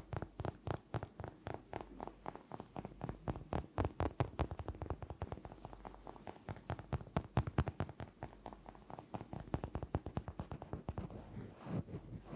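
Rapid tapping on a hard object, about eight light taps a second in uneven flurries.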